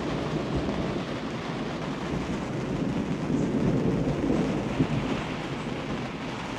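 Thunder rumbling after a lightning flash, swelling to its loudest about four seconds in and then fading, over steady rain.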